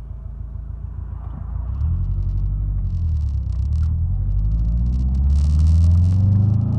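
Supercharged Subaru EJ25 flat-four engine under load, getting louder about two seconds in, then rising in pitch through the second half as it accelerates. This is the car whose hesitation under boost the owner traced to water-methanol injection bog from an oversized meth nozzle.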